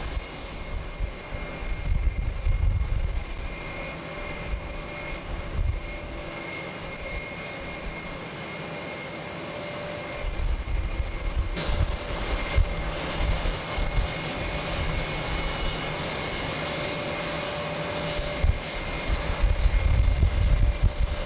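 Jet airliner engines running at taxi power: a steady high whine with a lower hum under it, as the airliners roll slowly past. Gusts of wind rumble on the microphone, strongest near the start and near the end.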